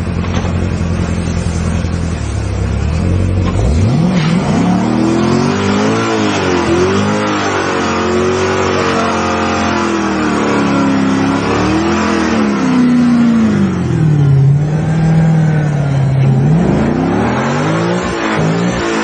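Chevrolet Corvette V8 idling, then revved up and down over and over from about four seconds in. Near the end it is held at high revs and climbs again as the rear tyre spins up into a smoky burnout.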